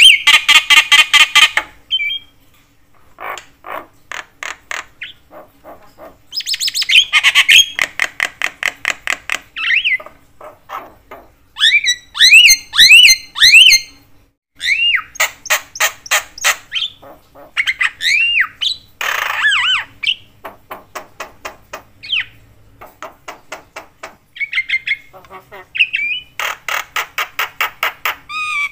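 Javan myna in full, chatty song: long runs of rapid, harsh rattling and clicking notes, broken by clear whistled notes that slide up and down, with a quick cluster of them about halfway through. It calls in loud bursts separated by short pauses.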